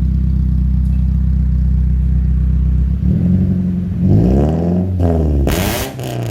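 Honda Civic FD2 with an aftermarket 4-2-1 header and full exhaust idling steadily, then revved in several quick blips from about three seconds in, the pitch sweeping up and down.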